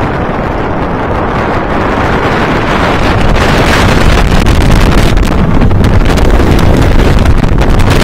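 Wind rushing over the microphone as the Steel Force hyper coaster train dives down its first drop, mixed with the rumble of the train on the steel track. The noise builds about three seconds in as the train picks up speed, then stays loud.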